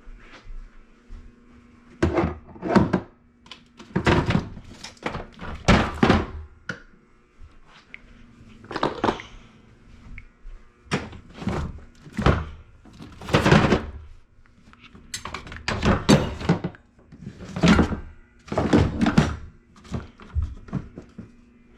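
A long run of dull thunks, about fifteen, coming irregularly with short gaps between them.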